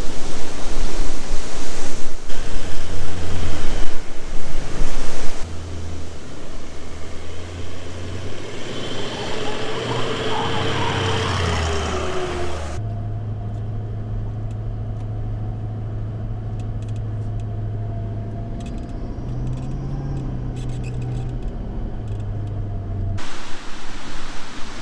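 Toyota LandCruiser 200 Series engine pulling the four-wheel drive through soft beach sand, its low drone rising and falling with the throttle. For the first few seconds a loud rush of wind on the microphone covers it.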